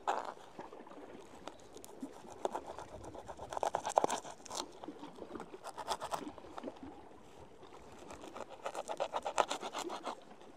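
Knife cutting a pinfish into chunks of bait, heard as quick scratchy sawing strokes in two spells, one around the middle and one near the end.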